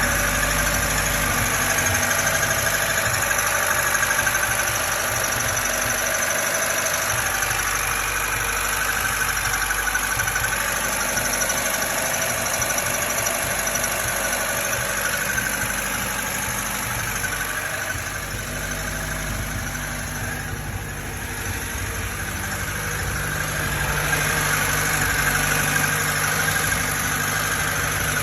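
Lada VAZ-21047's engine running steadily with an extraneous noise that the owner cannot identify; it eases off briefly about three-quarters of the way through.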